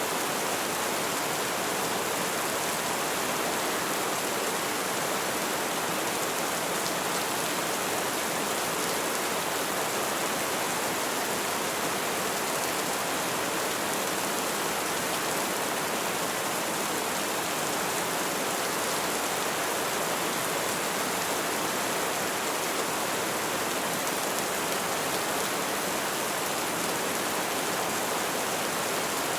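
Heavy rain falling steadily, an even dense hiss of drops on surfaces with no let-up.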